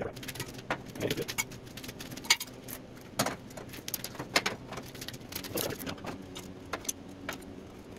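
Scattered clicks and metal knocks as a long straight edge is laid across a steel trailer frame and worked into place, with sharper knocks about two seconds in and just past four seconds.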